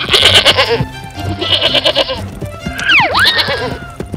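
Cartoon goat bleating twice with a quavering call, over background music, then a swooping whistle sound effect that dips and rises about three seconds in.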